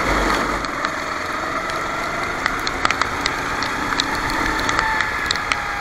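Racing kart engine running at speed on a wet track, its pitch slowly falling and shifting as the revs change, with scattered sharp ticks of water drops and spray. A short low rumble sounds right at the start.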